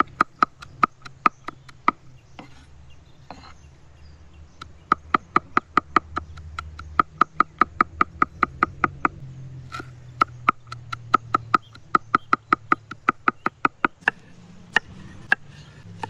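A large cleaver chopping fresh green herbs on a wooden cutting board: quick, even knocks of the blade on the board, about four a second, in three runs with short pauses between them.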